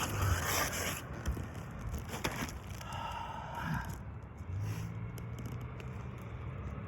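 Scraping and handling noises on asphalt roof shingles as a damaged shingle and its nails are worked loose, with a few sharp clicks.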